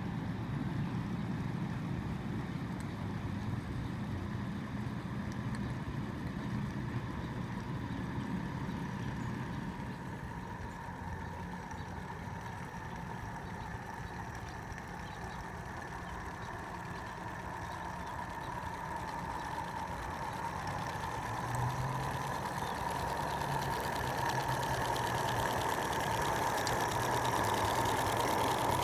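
Home-built live-steam Class A Climax geared locomotive running steadily under load as it pulls a train of small cars. A steady high tone grows louder over the last several seconds.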